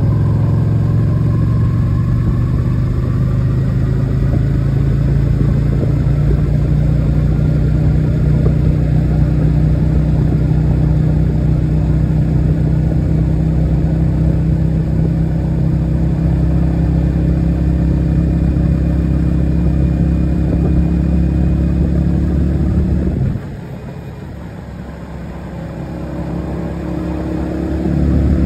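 Motorcycle engine running steadily under throttle at road speed. About two-thirds of the way through, the throttle closes and the engine note drops sharply for a few seconds, then builds back up as the throttle opens again near the end.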